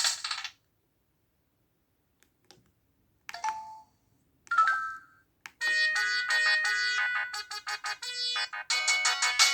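Ringtones played on a Samsung SPH-A790's Yamaha SMAF sound chip. One polyphonic melody cuts off half a second in. After about three seconds without sound come two short chimes, then a new multi-voice synthesized melody starts a little past halfway and runs on.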